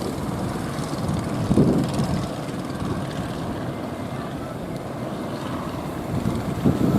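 Boat engines droning steadily amid wind and surf noise, with a louder swell about a second and a half in.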